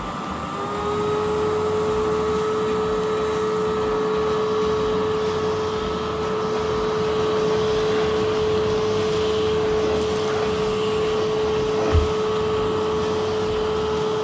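Samsung cyclonic vacuum cleaner with a 3600 W motor running steadily: a constant motor whine over a rush of air, rising slightly in pitch about half a second in. A single knock near the end.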